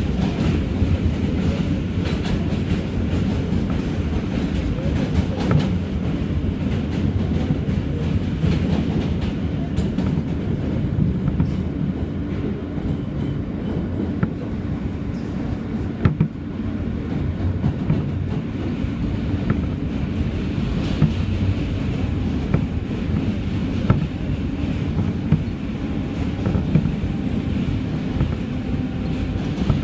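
New York City subway Q train running across the Manhattan Bridge, heard from inside the car: a steady low rumble with scattered sharp clacks of the wheels over the rails.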